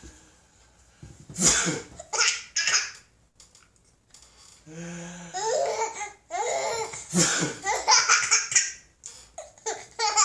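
A baby laughing in repeated bursts, breaking off between peals.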